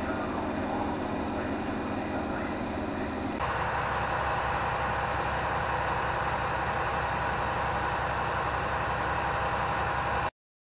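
Steady hum of a train standing at a station platform, with its machinery running. About three and a half seconds in the sound switches abruptly to a different steady hum with a high tone, and it cuts off suddenly shortly before the end.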